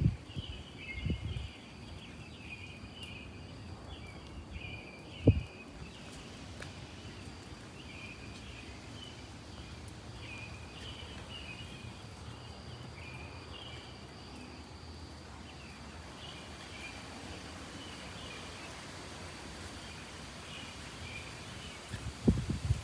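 Small birds chirping in short repeated phrases before sunrise, over a steady hiss of falling rain. A single thump about five seconds in, and low rumbling near the end.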